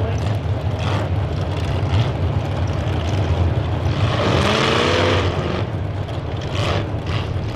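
Demolition derby compact cars' engines running loudly together, one of them revving up with a rising pitch and a rush of noise about four seconds in. Two short, sharp bursts come near the end.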